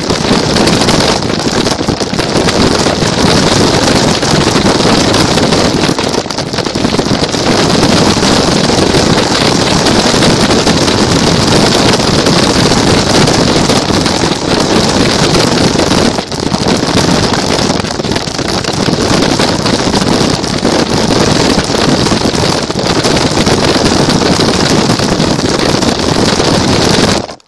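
Loud wind buffeting and rumble from a camera riding on a moving car, steady throughout, cutting off suddenly at the end.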